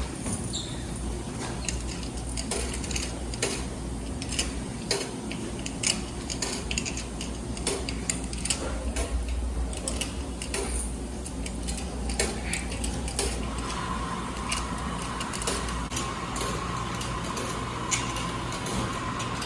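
Wascomat Senior W125 commercial front-load washing machine running, with a steady low hum and irregular metallic clinks and knocks. A steady whine comes in about two-thirds of the way through.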